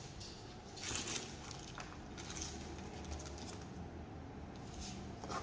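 Faint, scattered clinks and light rustling as small metal parts of an adjustable crank-mount bicycle kickstand are handled.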